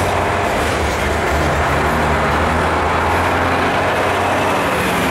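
Loaded covered hopper cars of a limestone freight train rolling past: a loud, steady rumble of steel wheels on the rails.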